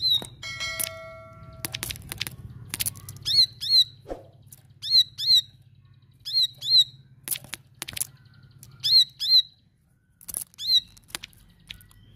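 A caged ciblek sawah prinia calling: loud, sharp, high notes, mostly in quick pairs, repeated every second or two, with sharp clicks in between.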